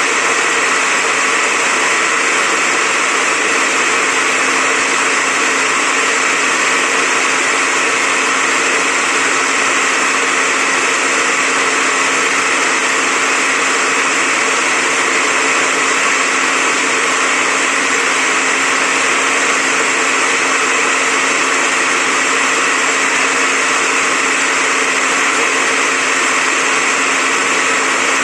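Electric orange juicer running steadily, its motor giving an even whirring noise over a low steady hum.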